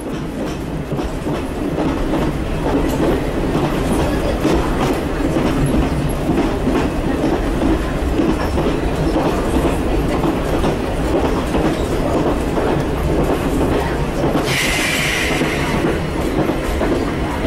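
280 hp Walker diesel railmotor running along the track, heard from its front cab: steady engine and wheel-on-rail noise. About three seconds before the end a brief higher hiss joins in for a second or so.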